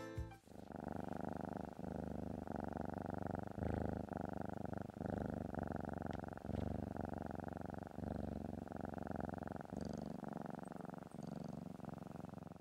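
A domestic cat purring steadily, the purr swelling and easing in rhythmic pulses with each breath.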